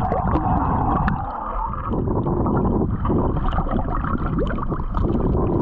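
Sea water sloshing and gurgling against a camera held at the surface, heard muffled as the camera dips in and out of the water.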